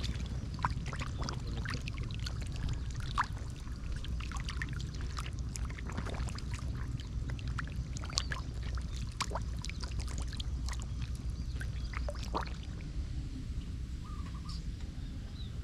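Shallow water splashing and trickling in many small irregular splashes, over a low steady rumble; the splashes thin out near the end.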